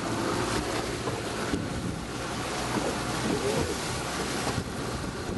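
Small tour boat under way at sea: a steady rush of wind on the microphone and water splashing along the hull, with the boat's motor running underneath.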